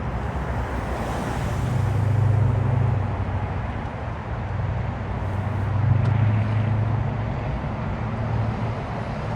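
Road traffic noise: vehicle engines and tyres, with wind on the microphone. A low engine hum swells twice, about two seconds in and again about six seconds in.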